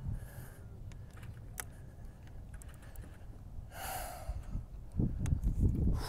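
A man breathing hard, with a sharp breathy exhale about four seconds in, over a low rumble that grows louder and choppier near the end, and scattered small clicks.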